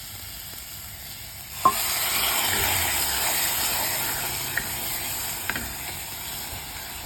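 Water poured into a hot wok of frying spices and tomatoes: a sudden loud sizzle bursts up about a second and a half in and hisses on, slowly fading. A couple of light clicks, likely of the stirring spoon, come later.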